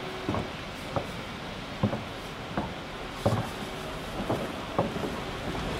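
About eight sharp knocks at irregular intervals, roughly one a second, each ringing briefly in a large indoor velodrome hall over a steady background rumble.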